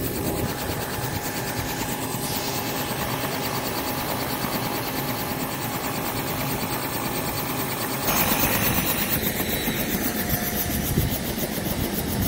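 Helicopter in flight heard from inside the cabin: a steady drone of engine and rotor noise, getting louder and deeper about eight seconds in.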